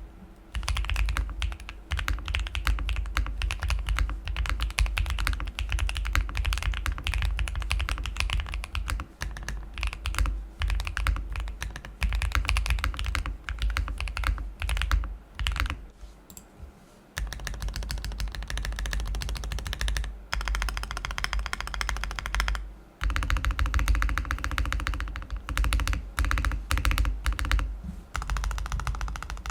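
Steady fast typing on a Zuoya GMK67 mechanical keyboard with lubed Kailh Blackberry switches and GMK BOW replica keycaps: a dense run of keystrokes with a few short pauses, the longest a little past halfway.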